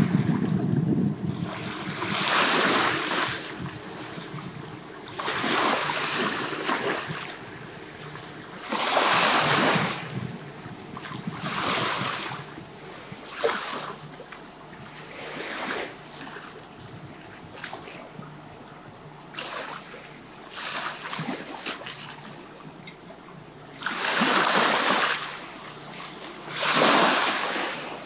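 Repeated swells of rushing noise, each a second or two long, rising and falling like surf washing in, with quieter stretches between them and a faint steady hum underneath.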